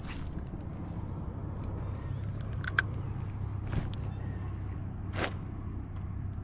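Spinning rod and reel in use during a cast and retrieve: a swish at the cast, a couple of sharp clicks and further brief swishes, over a steady low rumble.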